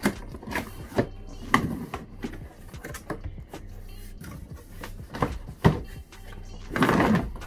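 Large cardboard box being opened by hand: scattered knocks and taps on the cardboard, then the lid scraping as it is slid off, with a longer, louder scrape near the end.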